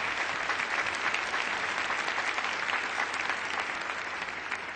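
Large audience applauding, a dense steady clapping that eases off slightly near the end.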